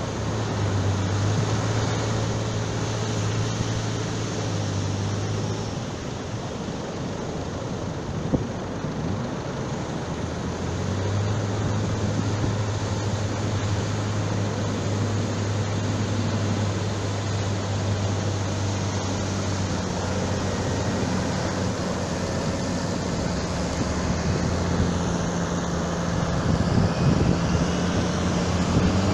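A motorboat engine runs with a steady low drone over the noise of wind and water. The drone dips for a few seconds near the first quarter, then comes back.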